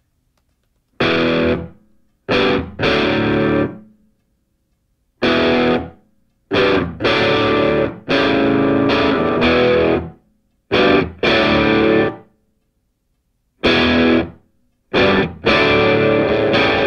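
Rock music: a distorted electric guitar plays a stop-start riff, with short bursts of chords cut off by complete silences.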